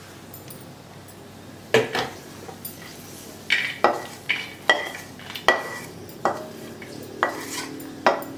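A spatula scraping and knocking against a metal kadai as ghee-fried cashews, almonds and raisins are tipped out into a clay dish: a string of short scrapes and clinks, several ringing briefly.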